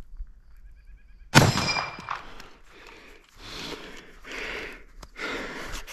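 A single sharp metallic clang with a short ringing tail about a second and a half in, followed by a few soft rustling noises.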